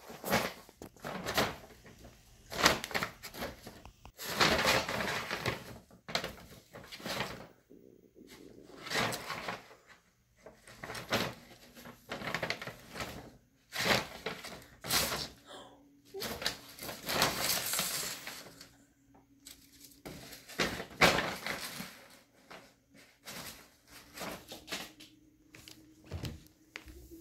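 Brown paper bags rustling and crinkling in irregular bursts, about one to two seconds apart, as cats burrow into them and paw at them.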